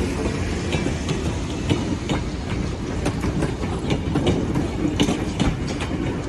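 Tourist train rolling past: a steady low rumble with wheels clicking over rail joints, the clicks coming thicker in the second half.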